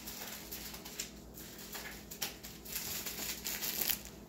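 Plastic packaging rustling and crinkling, with a few light taps, as small sealed bags of diamond-painting drills are picked up and handled.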